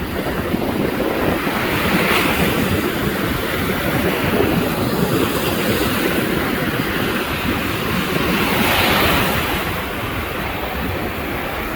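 Rough storm surf breaking and washing on the shore, with wind on the microphone adding a low rumble. Two bigger breakers swell up, one about two seconds in and one near the end.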